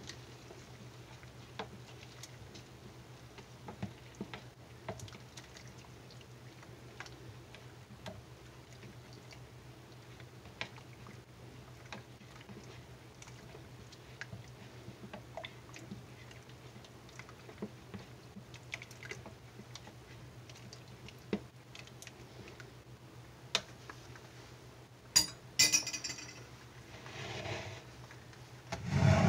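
A spoon stirring liquid in a plastic measuring jug, with scattered light clinks and scrapes against the jug's side over a steady low hum. A sharper clatter comes near the end as things are set down on the counter.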